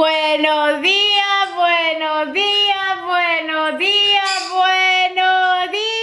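A woman singing alone with no accompaniment, a run of held notes that slide up or down into one another.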